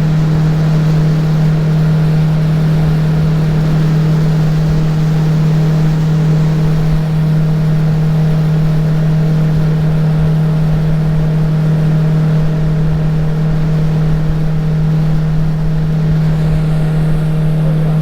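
Outboard jet-drive motor of a jet boat running steadily at speed: a loud, constant drone that holds one pitch throughout.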